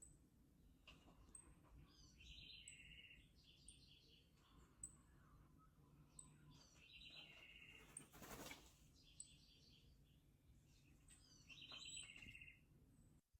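Birds calling faintly: about five short bursts of rapid chirping notes, with thin high ticks repeating about once a second.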